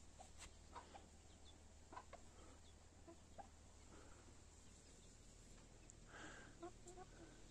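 Faint, scattered short clucks from bantam chickens over near silence. The calls come a little more often near the end.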